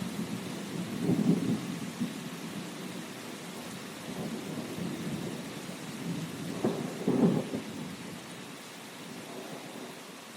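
Steady rain with thunder rumbling under it, in two louder swells about a second in and around seven seconds in. The rumble dies away near the end, leaving the even hiss of the rain.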